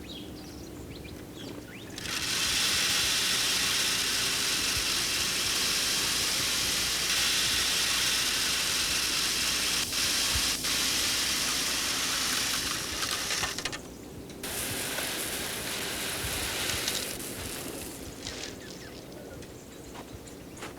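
A steady rushing hiss that starts suddenly about two seconds in, cuts off near fourteen seconds, and comes back more weakly for a few seconds before fading.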